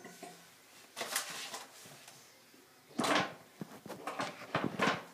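Small plastic tap cap being handled and pressed into a bathroom tap top: a series of short knocks and clicks in a few clusters.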